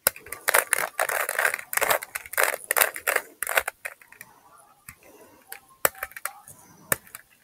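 Rubik's cube being turned by hand: rapid plastic clicking and scraping of the layers turning, dense for the first half, then slower, scattered clicks.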